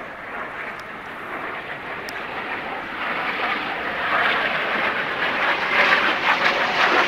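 Jet noise from Snowbirds CT-114 Tutor aircraft flying overhead, a rushing sound that builds steadily louder from about three seconds in.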